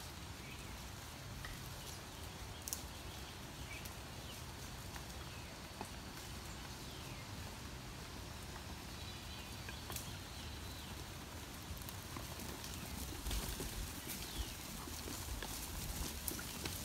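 Hooves of a flock of Barbados Blackbelly and Black Hawaiian sheep clip-clopping as they walk over a dirt and grass path, scattered light footfalls that grow louder in the last few seconds as the flock nears.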